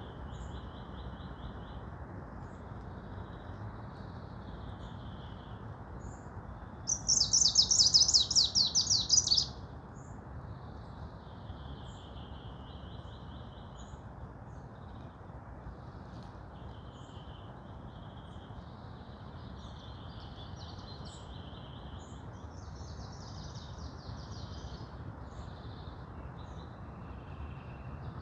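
Songbirds singing in a forest, one after another, with one much louder, fast trilling song from about seven to nine and a half seconds in. Under the birds runs a steady low background noise.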